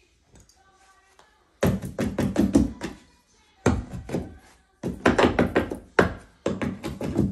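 Runs of quick tapping knocks from a hand tool tucking carpet into the gap between the tack strip and the baseboard, coming in four bursts after a quiet first second and a half.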